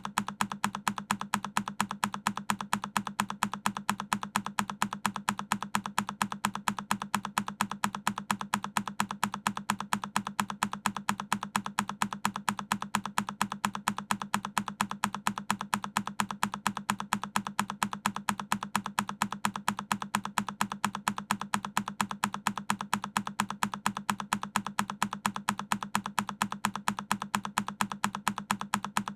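A single key press on a Keychron K10 mechanical keyboard, looped so that the same click repeats over and over in a fast, even rhythm.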